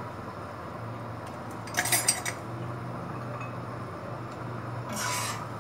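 Dishes and cutlery clinking as they are handled at a kitchen counter. There is a quick cluster of clinks about two seconds in and a shorter rattle near the end, over a steady low hum.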